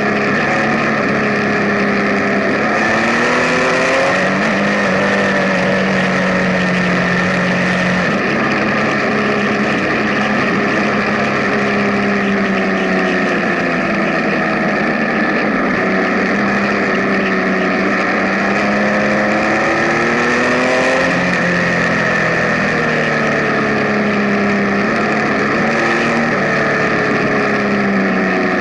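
Benelli Tornado Tre 1130 TNT Café Racer's inline three-cylinder engine running as the bike is ridden, its pitch rising and falling again and again with the throttle, over a steady rush of wind.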